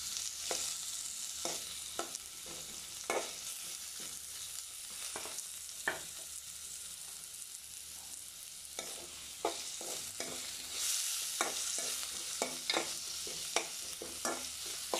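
Sliced onions sizzling in hot oil in a metal pot, being stirred and fried down until they brown. A metal spoon scrapes and clicks against the pot at irregular intervals over the steady sizzle.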